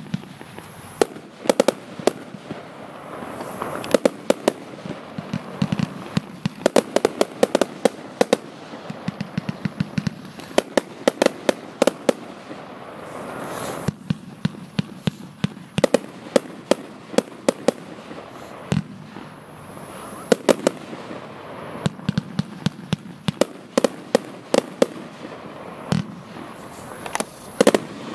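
Category F2 consumer firework cake (battery) firing a rapid run of shots and bursts, several bangs a second, with brief lulls between volleys.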